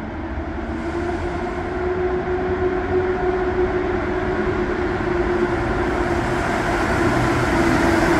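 Train moving through the station, a steady rumble with a humming tone that slowly grows louder as it approaches.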